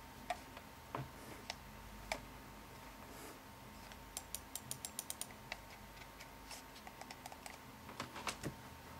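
Logitech G400 gaming mouse's buttons being clicked: a few single clicks, then a quick run of about eight clicks around four to five seconds in, and another cluster near the end.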